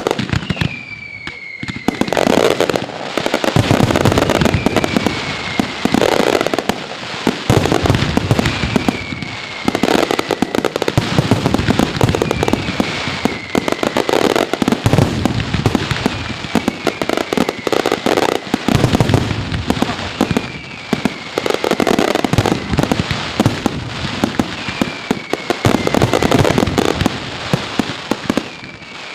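Mascletà firecrackers going off in a dense, continuous crackle of bangs that swells in waves every couple of seconds. A short, high falling whistle recurs about every two seconds through the barrage.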